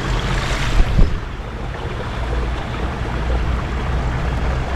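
Steady outdoor rumble and hiss at a riverbank, the kind of mix that wind on the microphone, flowing water and distant traffic make, with a short hiss and two soft knocks about a second in.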